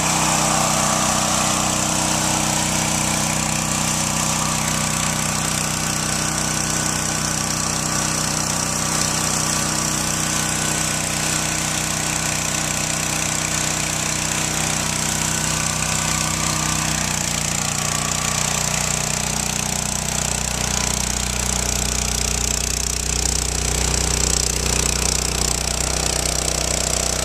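Engine-driven pressure washer running steadily, with the hiss of its water jet washing mildew off a clay tile roof. The engine note shifts about two-thirds of the way through and the low rumble grows stronger.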